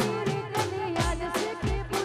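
Live garba music: a steady fast drum beat, about three beats a second, under a bending melody line.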